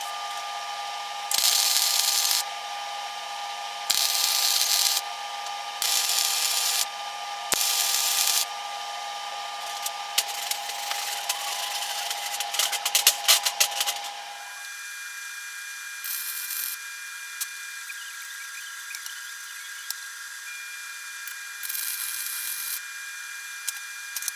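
Flux-cored wire-feed welder laying short tack welds: four hissing, crackling bursts of about a second each, then a few seconds of dense crackle, then two shorter bursts near the end.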